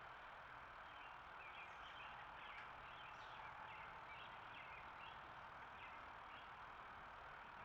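Faint series of short chirping calls from a small backyard animal, a couple per second, over a steady hiss of breeze.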